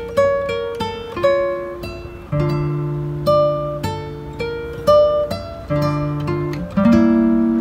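Background music: plucked acoustic guitar playing a melody of single notes over held bass notes.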